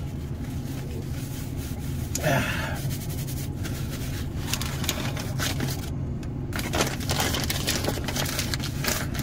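Sandwich paper and a paper take-out bag crinkling and rustling in quick, irregular crackles as the wrapper is packed into the bag, over a steady low hum.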